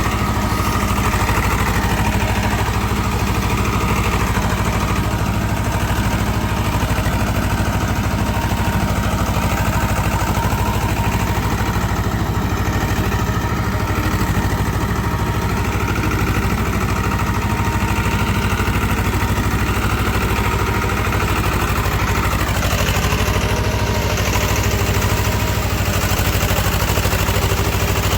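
Swaraj tractor's diesel engine running steadily at an even speed.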